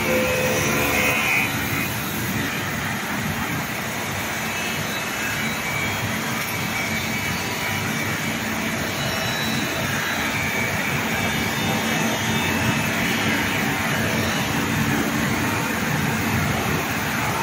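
Glass CNC edging machine at work: the spindle's grinding wheel running along the edge of a glass sheet under a water coolant spray, making a steady, dense machine noise.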